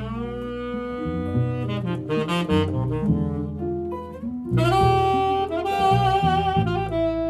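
Jazz saxophone playing an improvised solo, with quick runs of notes over lower accompanying notes.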